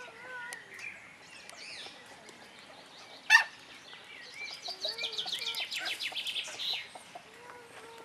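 Bird calls: a single sharp squawk about three seconds in, then a fast chattering trill lasting about two seconds, with faint wavering whistle-like notes at the start and near the end.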